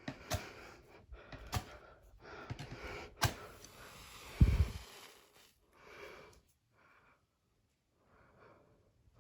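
Handling noises: a few sharp clicks, then a low thump about four and a half seconds in, followed by a few faint soft sounds.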